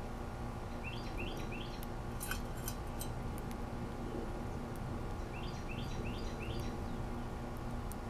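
A bird chirping in the background: two runs of four quick rising notes, about four seconds apart, over a steady low outdoor rumble. A few sharp clicks come about two to three seconds in.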